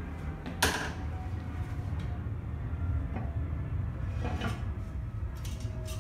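A sharp clack about half a second in, then lighter knocks and scrapes as the heavy cast-iron drill press column is tipped up off its wooden block, over a steady low hum.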